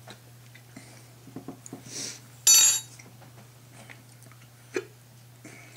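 Quiet mouth and spoon sounds of people tasting a hot sauce: faint clicks and smacks, with one short, loud hiss about two and a half seconds in and a small sharp click near the end.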